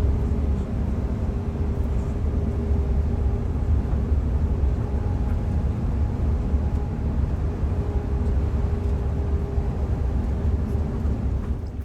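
Steady low rumble and drone of a running vehicle engine, unbroken, cutting off abruptly at the end.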